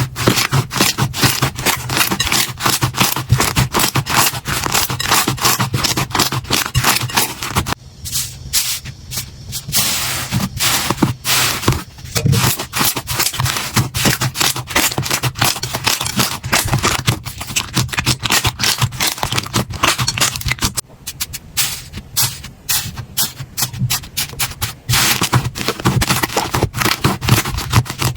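Slime being squeezed and worked by hand: dense, rapid crackling and sticky clicking and popping, easing off briefly a few times.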